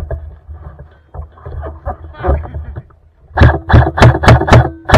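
Airsoft rifle firing a quick string of single shots, about four a second, each a sharp crack with a thud of the mechanism, starting about three seconds in. Before that come softer knocks and rustling of handled gear.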